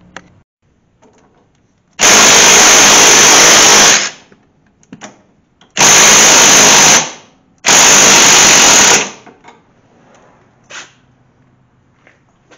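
Power tool driving a socket on a universal joint at a car's strut rod nut, run in three loud bursts: one of about two seconds, then two shorter ones close together. Small tool clicks come between the bursts.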